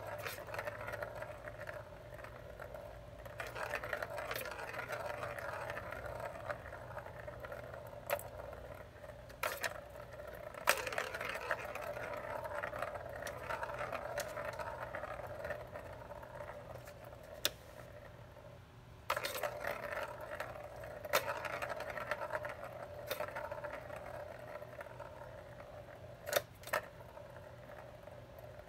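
Plastic balls rolling round the circular tracks of a three-tier plastic ball-track cat toy, knocked into motion by a kitten's paw. Each run starts with a sharp click and rolls on for several seconds before fading, four times over, with a few more scattered clicks of the balls knocking.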